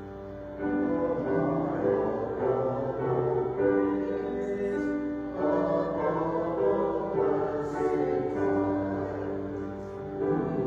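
A group of voices singing a hymn together in held, sustained notes.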